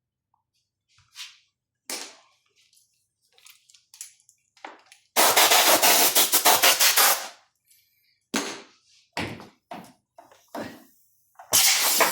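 Clicks and knocks of small ventilator parts being handled during cleaning, broken by a loud hiss lasting about two seconds about five seconds in and a shorter one near the end.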